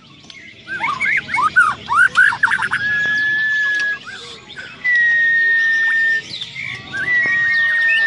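White-rumped shama (murai batu) singing: a quick run of varied rising and falling whistled notes, then long, clear, nearly level whistles held for about a second each. Fainter chirps of other birds sound behind it.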